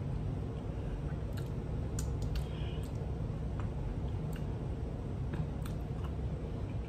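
Eating sounds: scattered light clicks and taps as sandwiches and fries are handled on a plate and chewed, over a steady low hum.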